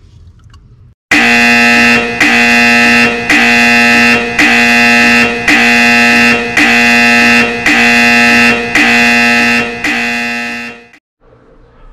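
A loud electronic buzzing tone, added in editing, that pulses about once a second, nine times. It starts and stops abruptly.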